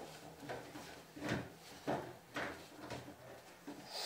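Soft handling and shuffling sounds of people shifting position: about six faint knocks and rustles spread through a few seconds.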